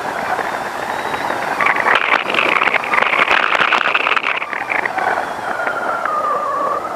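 Car driving on a road, heard from a camera mounted on its bonnet: a steady rush of road and wind noise with many small clicks, and a pitched whine that dips and rises again near the end.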